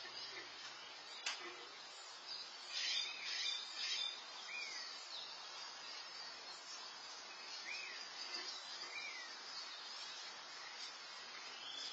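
Small birds chirping, heard through an outdoor security camera's microphone. A busy cluster of chirps comes about three seconds in, then a few separate short downward chirps, over a steady high background hiss.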